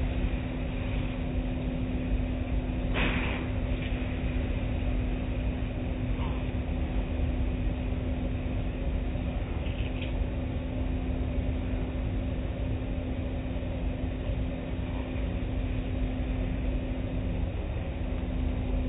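Automatic car wash heard from inside the car: spinning cloth brushes rubbing and scrubbing against the car's side and window over a steady deep rumble and a constant hum from the wash machinery, with a brief hiss of spray about three seconds in.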